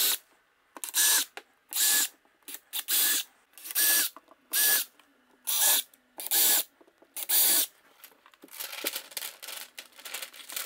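Cordless drill boring a row of shallow 2 mm pilot holes through a paper template into the back of a kitchen door panel: short runs of the motor spinning up, about one a second, eight in a row. From about eight seconds in, the paper template rustles and crinkles as it is peeled off the door.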